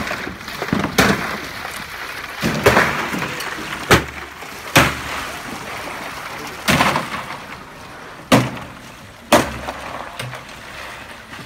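Water being poured from plastic jerry cans into plastic troughs full of ice, with about seven sharp knocks and clunks of cans and ice against the troughs spread through it.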